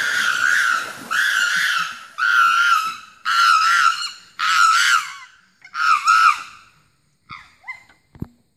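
Chimpanzee screaming: six long, high screams of about a second each, one after another, then two short calls and a brief low thump near the end.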